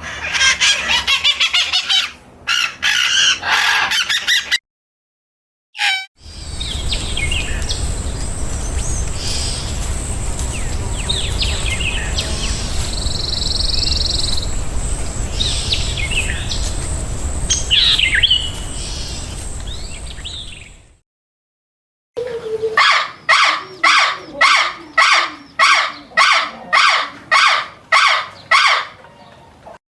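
Birds calling in three short cuts. First, dense rapid chirping of small birds. Then a steady outdoor hiss with scattered chirps and a thin high whine, and finally one bird giving a run of harsh, evenly spaced calls about twice a second.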